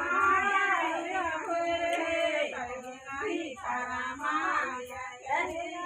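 Women and girls singing together, several voices holding and bending notes of a folk song.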